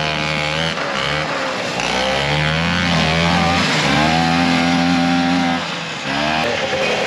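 Vintage snowmobile's two-stroke engine revving as the sled pulls away, its pitch rising and then holding. Near the end the engine briefly drops off and then picks up again.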